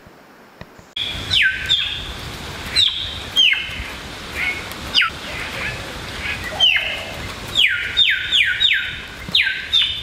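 A bird calling loudly: a string of sharp whistled notes, each sliding steeply down in pitch, starting about a second in and coming in a quick run near the end. The first second is faint and quiet.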